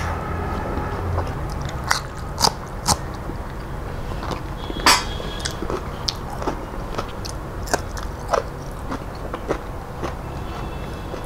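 Close-up chewing of a mouthful of rice and dal eaten by hand, with sharp, wet mouth clicks and lip smacks at irregular intervals, the loudest about five seconds in.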